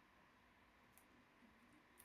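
Near silence: room tone, with two faint small clicks, one about a second in and one at the end.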